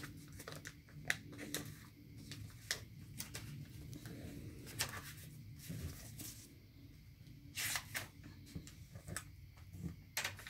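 Paper and cardboard rustling and crackling as hands press a decorative paper layer down over hot glue. It comes as scattered short crackles, with a louder rustle about three-quarters of the way through.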